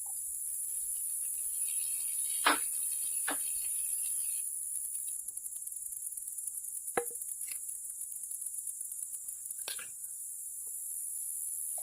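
Steady chorus of crickets, with a handful of sharp knocks and clinks scattered through it, the loudest about two and a half seconds in.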